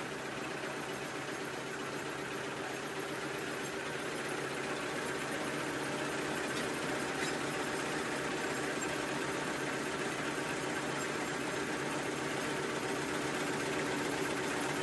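Four-line 1/6-fold napkin tissue folding machine running at speed: a steady, fast mechanical clatter over a hum.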